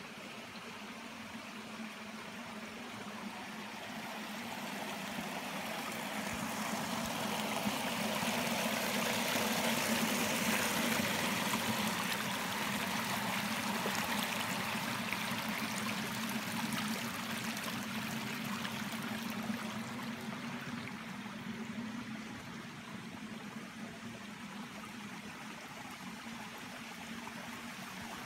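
Water of a small stream running and splashing down over rocks. It grows louder toward the middle, then slowly fades.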